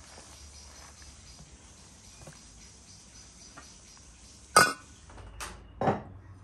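Earthenware clay pot lid being handled: a sharp ringing clink about four and a half seconds in, then two duller knocks of ceramic on ceramic within the next second and a half.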